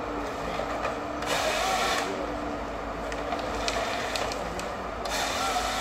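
Forestry harvester processing a felled stem: its engine and hydraulics drone steadily, with a louder rushing noise from the harvester head about a second in and again near the end.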